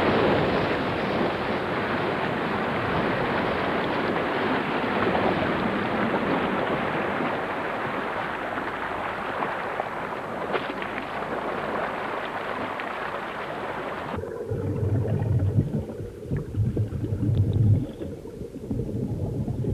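Water rushing and splashing around a car going into the water, a steady loud rush that cuts off suddenly about 14 seconds in. The quieter stretch that follows holds low thuds and water sloshing.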